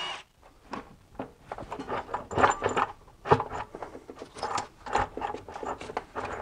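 Intake manifold on a BMW M62TU V8 being worked loose by hand: an uneven string of knocks, clunks and rubbing scrapes as it shifts against the engine.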